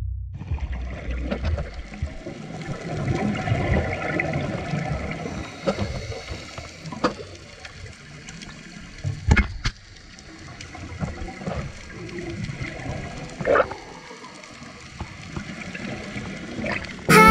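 Underwater sound heard through a camera's waterproof housing: scuba divers' exhaled bubbles gurgling in swells that rise and fall, with a few sharp knocks around the middle.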